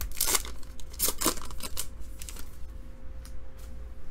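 Foil wrapper of a trading card pack being torn open and crinkled, with the cards slid out. The crackling rustles are busiest in the first two seconds, then thin out.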